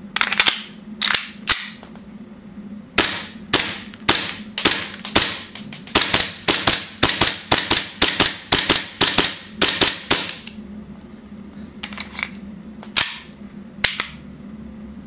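WE P226 full-metal gas blowback airsoft pistol firing, each shot a sharp crack with the slide cycling. Three single shots, then a quick string of about twenty shots at roughly three a second, then a few more spaced shots near the end.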